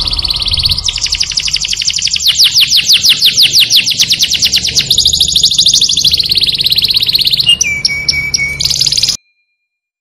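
A songbird singing fast, rolling trills of high repeated notes in several changing phrases, ending in a few clipped notes before the song cuts off abruptly about nine seconds in.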